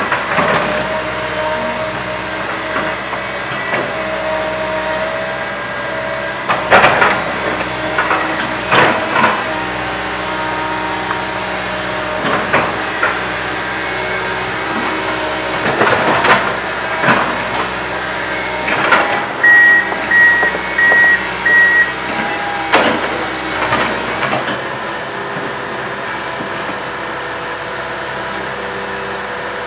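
Komatsu PC160 hydraulic excavator's diesel engine running steadily under load while it digs, with repeated short surges of hissing noise from the work. A run of about four short beeps sounds about two-thirds of the way through.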